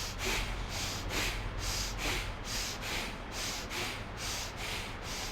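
A man breathing quickly and forcefully through the nose in a pranayama exercise: short, even, hissing breath pulses at about two a second.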